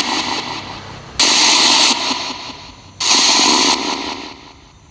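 Spirit box radio sweep played through a small amplified speaker: bursts of hissing static, each cutting in suddenly and fading over about a second, repeating roughly every two seconds, with new bursts about a second in and about three seconds in.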